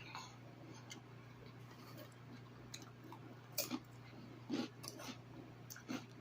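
Close-up mouth sounds of a person chewing a fried fish sandwich: scattered wet smacks and clicks a second or more apart, over a faint steady hum.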